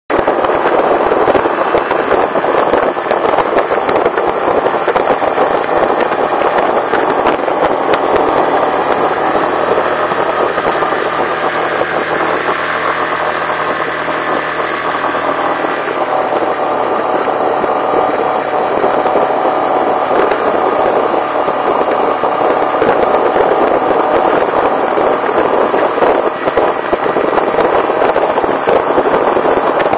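Yamaha Kodiak 450 ATV's single-cylinder four-stroke engine running steadily while the quad rides along a gravel trail, with the noise of the ride mixed in.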